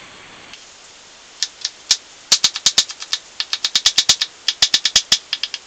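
Kitchen knife finely chopping garlic on a plastic cutting board: sharp taps of the blade on the board, a few at first and then a fast, even run of about six a second.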